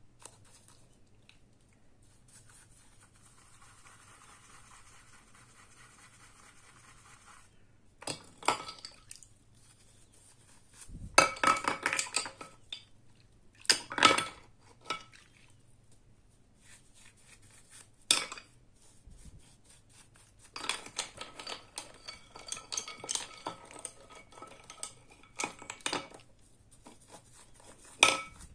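Small brass faucet parts clinking against a glass bowl and being scrubbed with a bristle brush in soapy water, in scattered bursts that start about eight seconds in.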